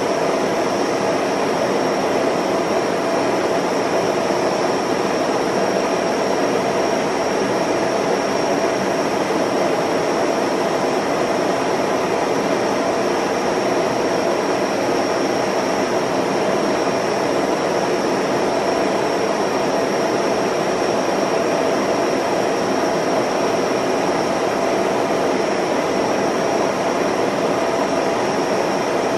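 Steady mechanical whir of a film projector running, an even hum-and-hiss with a thin high whine, unchanging throughout.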